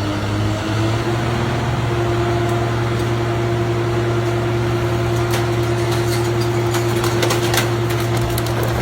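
Hydraulic crushing machine's power unit running steadily after revving up. From about five seconds in, sharp cracks and snaps come through as material is crushed.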